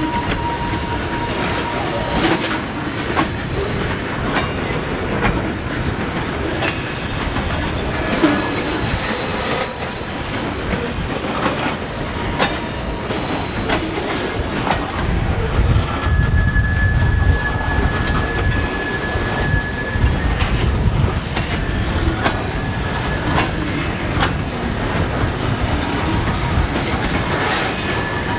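Freight train hauled by Union Pacific 1158 rolling past, its wheels clicking steadily over the rail joints. Past the middle the low rumble swells for several seconds, and a thin, steady, high wheel squeal is heard for about four seconds.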